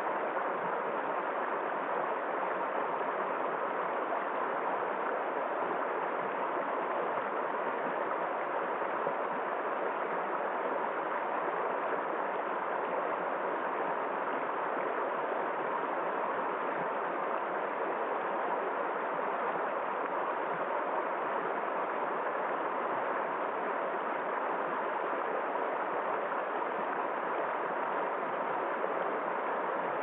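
Shallow, rocky river rushing and splashing over stones in white-water riffles, a steady rush of water that doesn't change.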